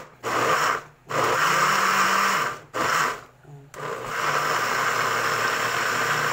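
Countertop blender switched on and off in a few short bursts, then running steadily from about four seconds in, churning chunks of fruit and vegetables in water into a pulp.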